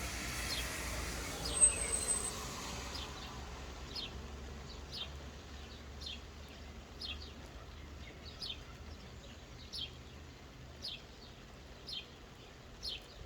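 Soft, light rain hiss with a bird repeating a short, high, falling chirp about once a second. A brief knock sounds about a second and a half in.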